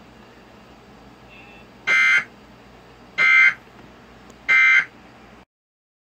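Emergency Alert System end-of-message data signal from a TV speaker: three short, loud buzzing bursts of SAME digital tones about 1.3 s apart, marking the end of the severe thunderstorm warning broadcast. The sound cuts off abruptly near the end.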